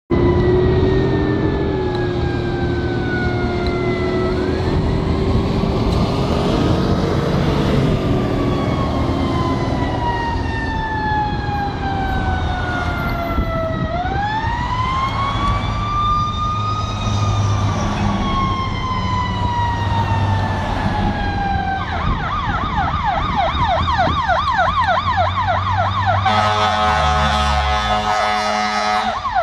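Ambulance siren in a slow wail, long falling sweeps each followed by a rise, switching to a fast yelp about 22 seconds in. Near the end a steady horn blast of several tones sounds for a few seconds over the yelp and the traffic rumble.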